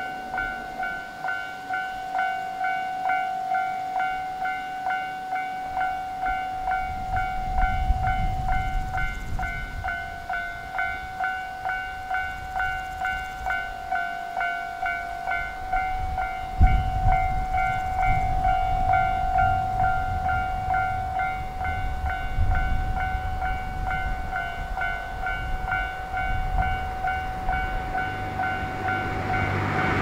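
Railway level-crossing warning bell ringing: an electronic ding repeated at an even rate, signalling that a train is approaching and the crossing is closed. A low rumble grows beneath it, with a thump about 17 seconds in. Right at the end the approaching train's noise begins to swell.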